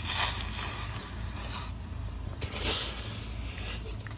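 Rag wiped over hot copper refrigerant tubing that has just been unsweated with a torch, hissing in two short bursts, one near the start and one about halfway through.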